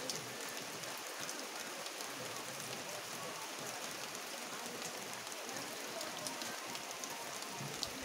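Steady rain falling, an even hiss with scattered sharper taps of single drops.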